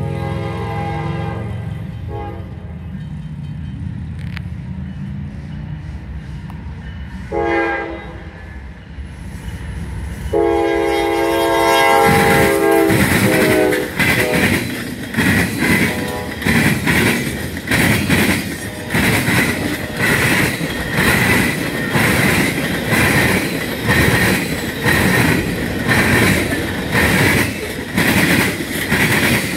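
Freight train's locomotive horn blowing several chord blasts as it approaches, the last one long. The train then passes close by: loud rolling clatter with regular heavy bangs, about one a second, as the wagon wheels pound over the rail diamond crossing.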